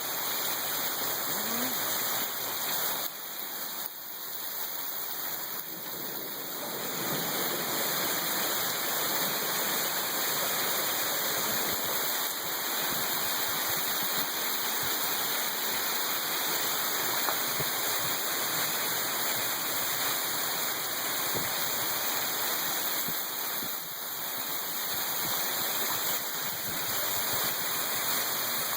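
Heavy rain falling hard, a steady, even hiss of pouring water.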